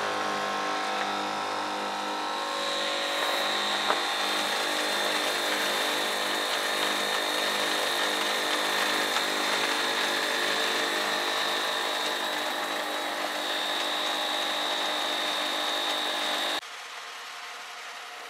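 Two portable air compressors running together, inflating the tires through a four-tire inflator manifold: a steady motor sound with a fast pulsing rhythm and a steady high whistle. Near the end the sound cuts off suddenly as the tires reach pressure.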